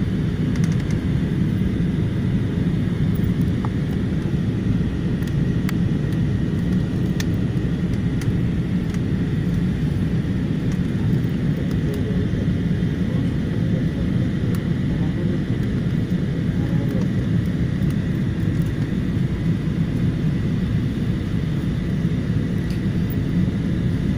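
Steady cabin noise inside an Airbus A320-family airliner descending through cloud: an even rumble of engines and rushing air, mostly low in pitch, with a faint steady whine above it.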